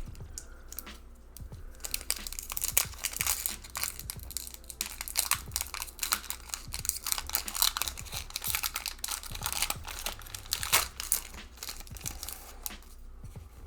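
Foil Pokémon booster pack wrapper being torn open and crinkled: a dense, irregular run of crackling and rustling.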